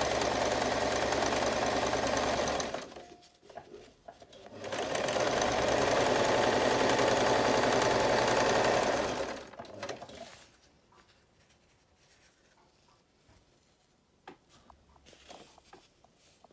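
Domestic electric sewing machine stitching stretched elastic onto fabric: it runs steadily, stops briefly about three seconds in, runs again for about five seconds, then stops. Only faint small clicks follow.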